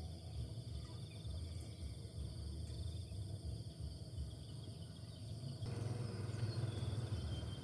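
Outdoor ambience: steady high insect buzzing over a continuous low rumble, the background growing a little fuller and louder about six seconds in.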